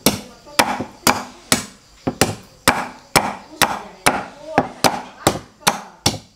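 Steady chopping with a blade, sharp knocks about two a second, each with a short ringing tail.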